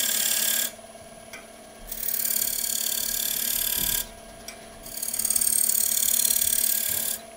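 Skew chisel tip cutting a bead into a bowl spinning on a wood lathe: three rasping cutting passes, the longer two about two seconds each, with the running lathe's steady hum in the gaps between them.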